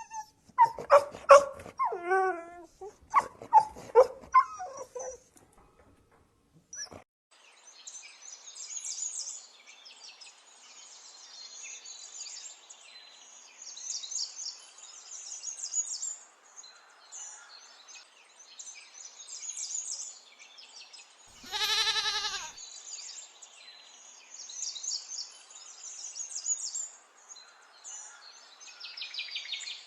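A dog barks and yelps several times over the first five seconds. After a pause, a steady chatter of high chirps takes over, broken a little past the middle by one loud, drawn-out animal call of about a second.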